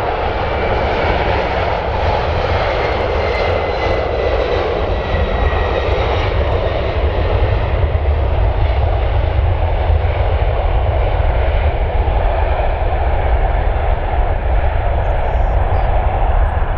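Boeing 747-400's four GE CF6-80C2B1F turbofans at takeoff power: a loud, steady jet rumble, heaviest in the low end, with a faint whine sliding slowly down in pitch.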